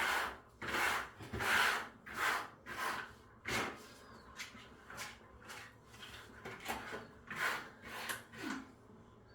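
Quick repeated brushing strokes, a dozen or so short scrapes at about one every two-thirds of a second, louder in the first few seconds and fainter after.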